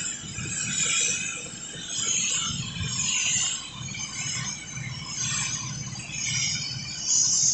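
Compressed-air paint spray gun hissing in repeated swells about once a second as it sprays paint along a vehicle body, over a steady low rumble.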